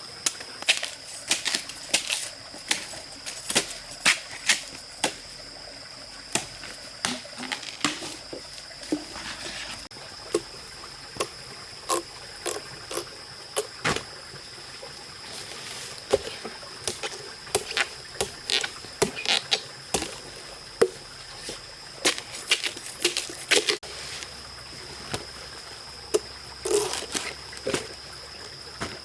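Water sloshing and trickling, broken by irregular short splashes and knocks, at times several a second, over a steady high-pitched drone.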